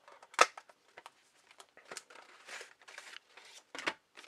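Packaging being handled: crinkling and rustling with a string of sharp clicks, the loudest about half a second in.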